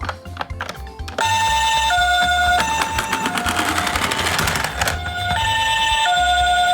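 Toy ambulance's electronic two-tone siren, the Japanese 'pee-poh' ambulance pattern: a high and a low tone alternating about every two-thirds of a second, starting abruptly about a second in after some clicking. A clattering rattle runs under it through the middle.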